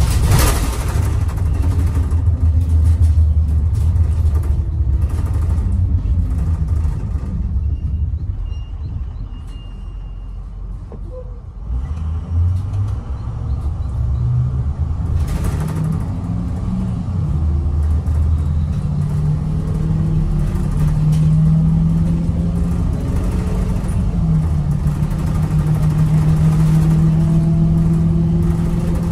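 International VT365 V8 turbo-diesel of an IC CE200 school bus running on the road, heard from inside the passenger cabin, on freshly replaced injectors. The drone eases off and quiets for a few seconds near the middle, then climbs in pitch again as the bus pulls away and settles into a steady hum near the end.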